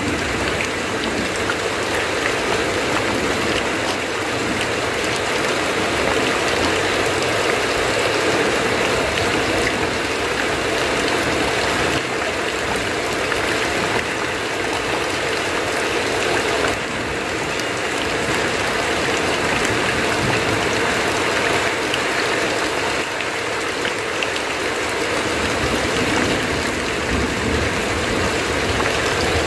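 Heavy rain falling steadily on a tin roof, with runoff streaming off the eaves: an even, unbroken hiss.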